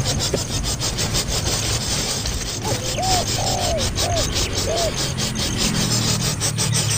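A young bird calling: a run of five short, arched, hooting notes starting a little before the middle. Under it runs a steady, rapid rasping rub.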